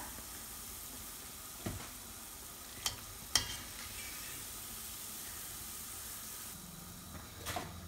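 Deep-frying vegetable oil sizzling in a cast-iron pan as fried split cakes are lifted out with a wire-mesh skimmer, with a few sharp clicks of the metal skimmer against the pan about two to three and a half seconds in. The sizzle drops off about six and a half seconds in.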